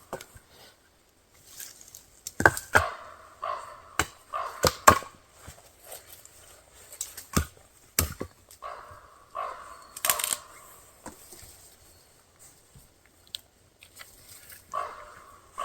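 Firewood being worked by hand: a few short saw strokes between sharp wooden knocks and cracks, irregular and stop-start.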